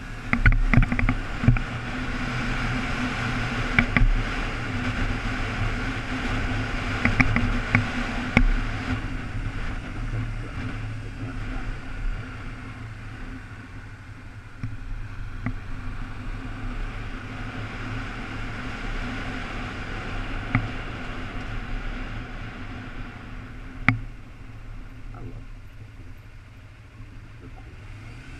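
Sport motorcycle running through town traffic, heard from a camera on the bike, with wind noise. It is louder for the first several seconds and then settles quieter. Several sharp knocks come early and one more near the end.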